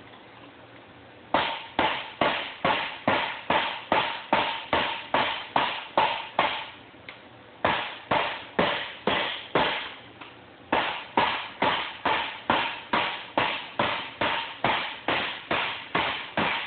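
Soft-faced dead blow hammer striking a steel exhaust tube over a bench dome in steady blows, about two and a half a second, with a faint ring from the tube and a few short pauses. The tube end is being shrunk down in diameter to form a stepped header transition.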